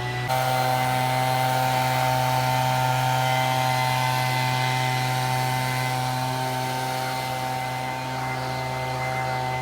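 Engine running at a steady, even speed with a strong hum. It picks up slightly just after the start and cuts off suddenly at the end.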